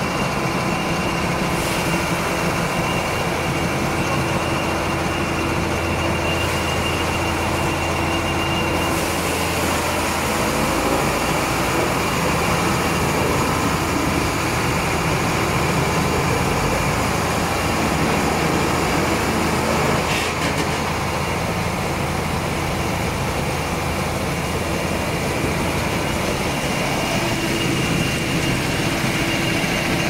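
Trailer-mounted wood crusher (wood chipper) running steadily while chipping wood, a continuous loud mechanical drone with a steady high whine over it.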